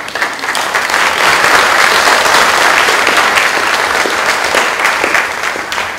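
Audience applauding, a dense patter of many hands clapping that builds quickly, holds, and dies away near the end.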